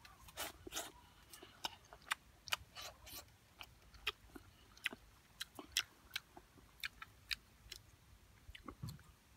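Close-up eating sounds: a person chewing soup of fish and banana-tree stem, with sharp wet mouth clicks at irregular intervals, a few a second.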